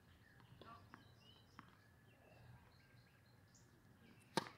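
Faint bird chirps over a quiet background, then near the end a single sharp crack of a tennis racket striking the ball on a serve.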